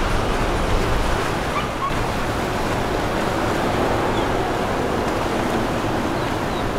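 Steady rushing wash of water churned up by a passing motor yacht's hull and wake.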